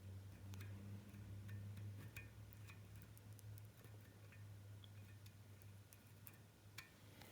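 Near silence: a low steady hum with a few faint, scattered clicks.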